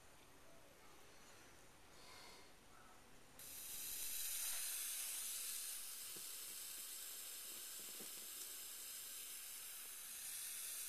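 Vintage color tube television powering up after a flyback repair: a steady hiss starts suddenly about three seconds in as the high voltage comes up, and keeps going.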